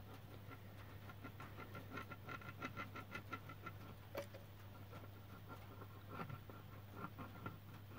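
A caulking gun being squeezed to run a bead of sealant around a spotlight housing: a run of faint quick clicks and squeaks, about four a second, thinning out after about four seconds. A steady low hum runs underneath.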